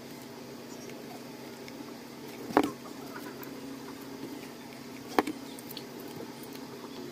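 A steady low hum, broken twice by a sharp knock, about two and a half seconds apart.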